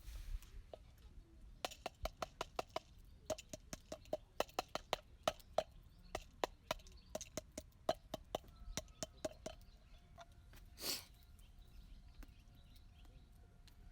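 A rapid, irregular run of sharp clicks and taps, some with a faint ringing tone, thinning out after about ten seconds, with one short hiss about eleven seconds in.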